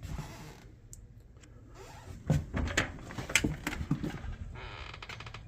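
A door being opened: several knocks and clunks, then a steady rattling slide near the end.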